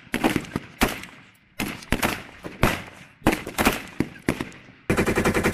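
M16A4 service rifle fire in three quick strings of shots, then near the end a sustained rapid burst of M240B machine-gun fire.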